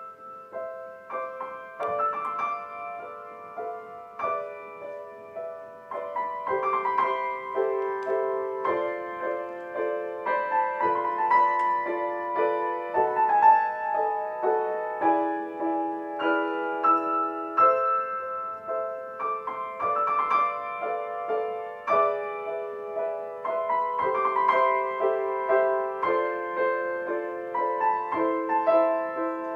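Solo piano playing a continuous flowing passage of notes and chords, mostly in the middle and upper register with little bass.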